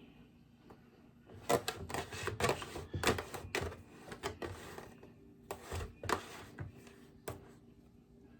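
A kitchen utensil scraping and knocking against a mixing bowl as cake batter is poured and scraped out into a baking pan: irregular clicks and scrapes, thinning out near the end.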